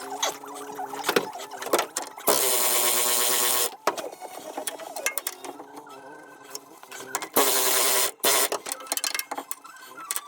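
Two bursts from a power tool, the first about a second and a half long and the second under a second, each cutting off abruptly, with clicks and knocks of work on the bus between them.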